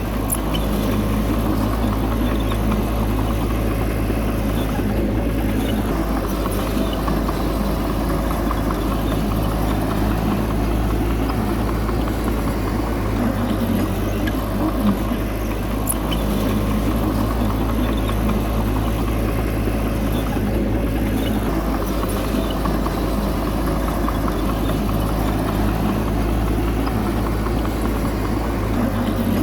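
Heavy diesel engine of earthmoving machinery running steadily, a low even drone with a few faint clicks and knocks.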